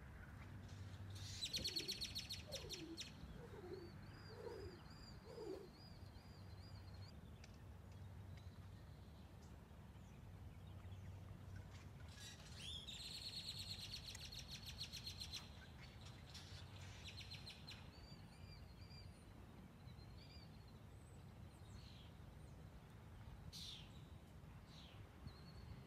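Wild birds singing: two bursts of rapid, high trilling, about a second and a half in and again about twelve seconds in, with scattered chirps and a warbling song between them, over a low steady rumble.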